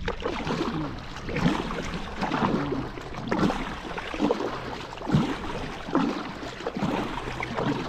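A kayak being paddled: a stroke about once a second, each with a splash of water and a knock against the hull.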